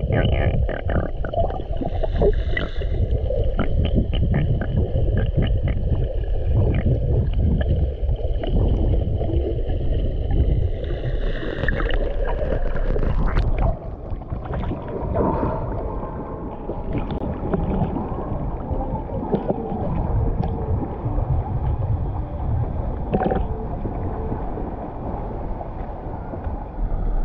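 Muffled underwater rush and rumble of water moving over a submerged waterproof action camera as a swimmer glides along, with a faint steady whine. About 14 seconds in the camera breaks the surface and the sound turns lighter: small waves lapping and splashing around the camera.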